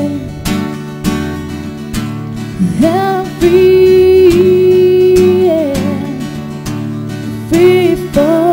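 A woman singing live with a strummed acoustic guitar accompanying her, holding one long note from about three seconds in.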